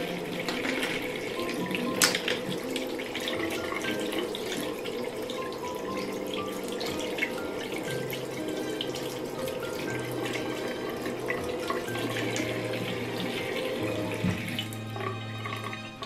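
Bathroom tap running steadily into a sink while makeup brushes are rinsed under the stream, with one sharp knock about two seconds in; the water is shut off near the end.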